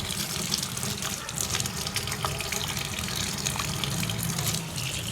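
Water running steadily from a tap and splashing onto a small plastic gum case being rinsed under it.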